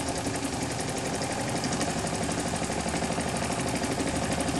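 Cyldon 13-2 toy steam engine with a semi-rotative valve running steadily on live steam, a rapid, even beat of exhaust and moving parts. It is running smoothly now that the early priming has stopped.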